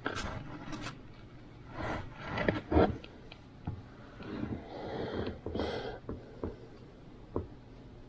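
Handling noises: scattered rustling and scraping with light clicks and knocks. The loudest is a sharp knock a little before three seconds in.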